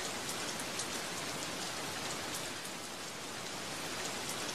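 Steady rain falling: an even hiss with a faint patter of individual drops.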